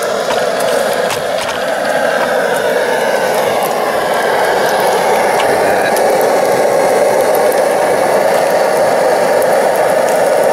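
MSR Dragonfly liquid-fuel camp stove burning steadily under a frying pan, a loud, even rushing noise, with faint pops from bacon sizzling in the pan.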